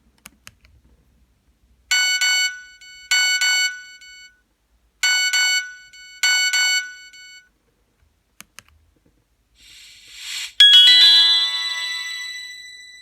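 Nokia 1280 mobile phone ringtones: two pairs of short, fast electronic beeping phrases, each about a second long, with faint clicks between them. Near the end a rising swell runs into a bright chime that rings on and slowly fades.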